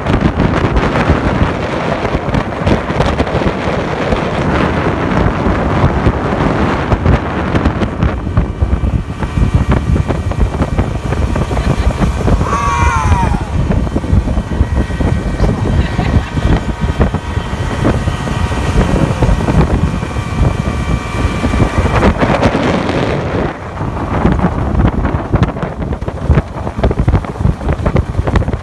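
Wind buffeting the microphone in a small open motorboat running at speed, with rushing water and spray off the hull and the motor's steady hum underneath. A faint steady whine from the motor comes through for a stretch in the middle.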